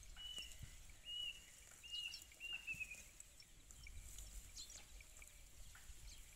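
Cow grazing on dry grass: faint scattered crackles and rips as it tears the stalks. A bird chirps several times in the first three seconds.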